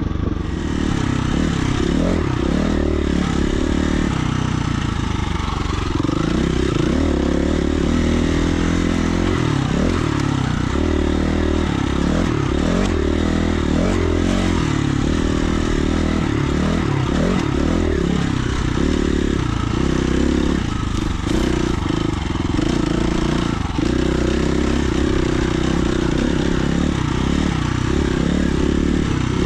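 Dirt bike engine running as the bike rides a trail, its revs rising and falling again and again with the throttle.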